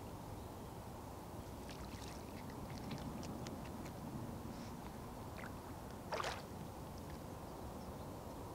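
Eurasian otter splashing at the water surface: a few light splashes and drips, then one louder splash about six seconds in as it dives. A steady low hum of distant traffic lies underneath.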